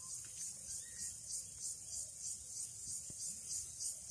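A chorus of insects shrilling in a steady high-pitched pulse, about three pulses a second.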